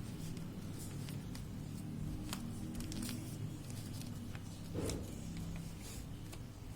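A sheet of paper being handled and folded by hand: scattered rustles and crinkles over a steady low hum, with one louder rustle just under five seconds in.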